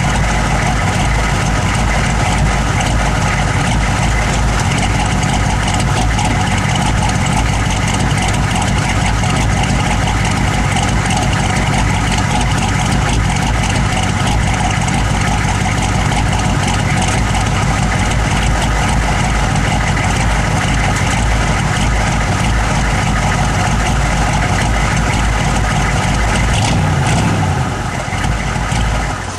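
Engine idling roughly, a rough idle of unknown cause. The sound stays steady, wavers briefly near the end, then cuts off.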